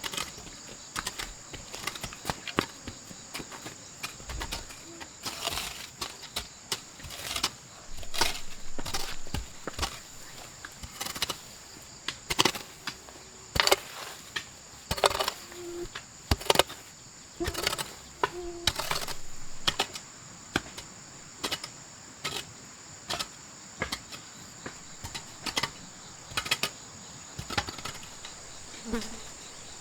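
Steady high insect chirring, with many irregular sharp knocks and clatters over it, densest in the middle stretch.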